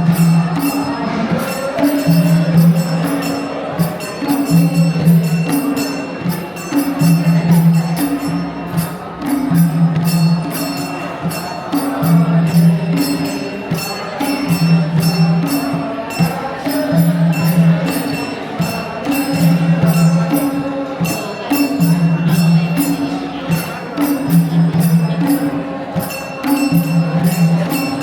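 Traditional Gurung dance music from Nepal: a low two-note pattern repeating about every two seconds, with steady jingling and clinking percussion over it and a faint voice singing.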